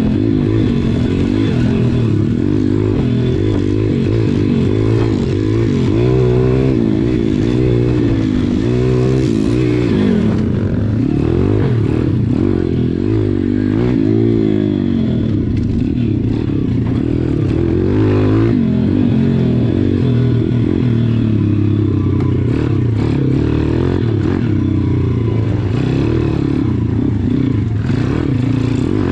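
SSR pit bike's small air-cooled four-stroke single-cylinder engine running under the rider, revving up and falling back again and again as it is ridden around a dirt track.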